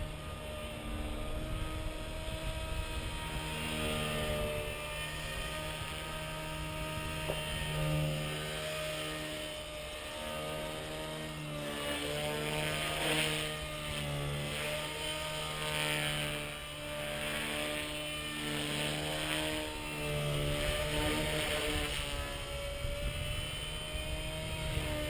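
Gaui EP200 electric radio-controlled helicopter in flight: a steady hum from its motor and rotors that wavers up and down in pitch as it manoeuvres, over a low rumble of wind on the microphone.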